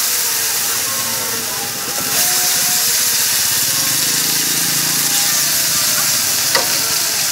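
Yellow noodles sizzling and steaming in a hot wok. The sizzle gets louder about two seconds in as leafy greens go in. A metal spatula stirs and scrapes against the wok, with a sharp clank near the end.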